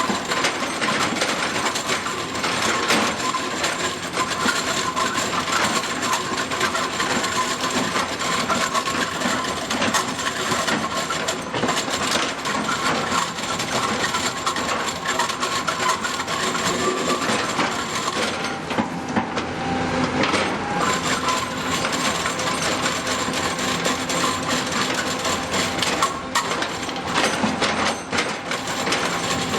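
Excavator-mounted hydraulic rotary drum cutter milling solid stone: a steady, dense clatter of cutter picks striking rock and chips rattling, with faint machine tones underneath.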